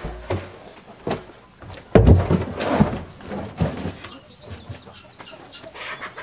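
Knocks and thumps of a blue plastic 55-gallon drum being handled and set down on a cinder block. The loudest thump comes about two seconds in, with several lighter knocks around it.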